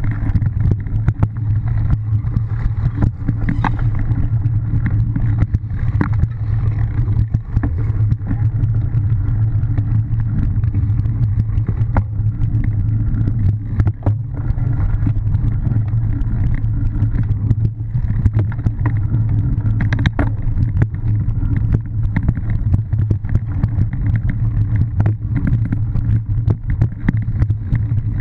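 Wind rumble and vibration on a bike-mounted camera during cyclocross riding: a steady low rumble with frequent clicks and rattles from the bike over rough grass and dirt.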